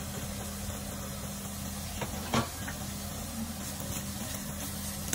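Sliced bell peppers, mushrooms and onion sizzling in a nonstick frying pan, a steady hiss over a low hum, with one sharp knock about two and a half seconds in.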